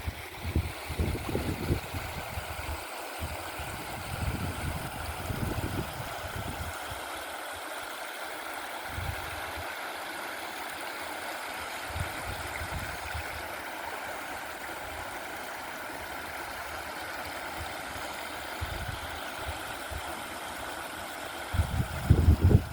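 Stream water flowing steadily, with gusts of wind rumbling on the microphone in the first several seconds and again near the end.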